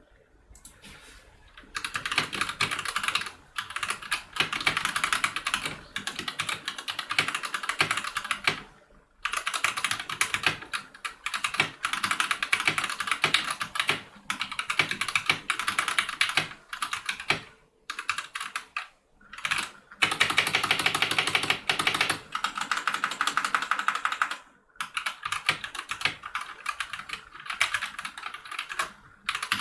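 Fast typing on an Anne Pro 2 mechanical keyboard with Gateron Red linear switches: dense runs of key clacks lasting a few seconds each, broken by short pauses.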